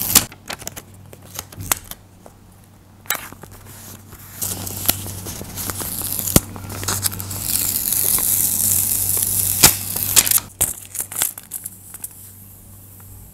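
Hands handling a paper cutout: paper crinkling and rustling with scattered sharp clicks, and a long stretch of peeling, tearing-like noise in the middle as the cutout is peeled and folded before being pressed onto the page.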